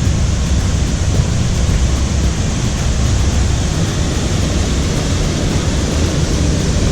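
Waterfall roaring: a steady, loud rush of falling water.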